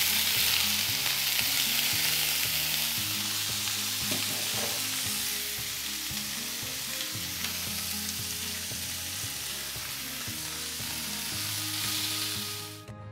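Pieces of raw chicken breast sizzling in hot oil in a frying pan. The sizzle is loudest at first, just after the meat goes in, slowly settles, and cuts off abruptly near the end.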